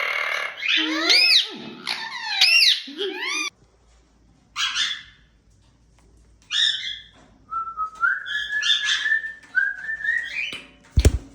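Indian ringneck parrot calling. Several quick rising-and-falling whistled calls come in the first three seconds, then two short rasping calls, then a long whistle that steps up in pitch. A brief low thump sounds near the end.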